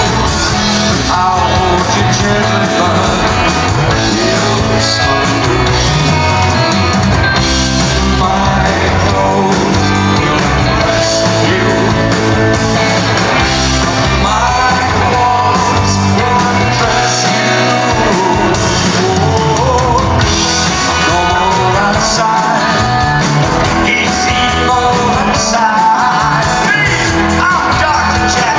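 A rock band playing live at full volume: electric guitars, bass guitar, drums and keyboards under a male lead vocal sung into a microphone through the PA, heard from within the crowd.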